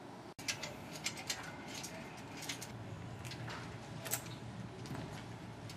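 Irregular light clicks and knocks, a dozen or so spread unevenly, over a faint steady background, starting just after an abrupt cut.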